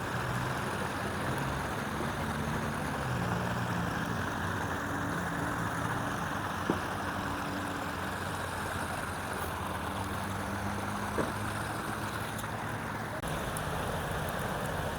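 Steady rushing of the flooded Mary River's fast-flowing water, with a faint low engine hum underneath and a couple of small clicks.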